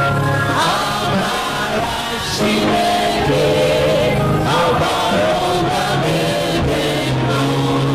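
Gospel singing with keyboard accompaniment: voices hold and bend long notes over sustained low chords.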